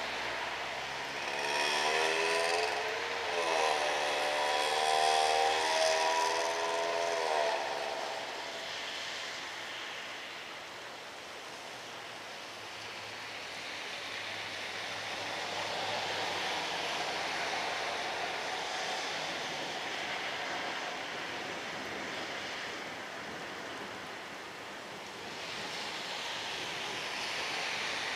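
A horn or siren sounds with several pitches at once for about seven seconds near the start, dipping and then rising in pitch, over a steady hiss of rain and tyres on wet streets that swells and fades for the rest.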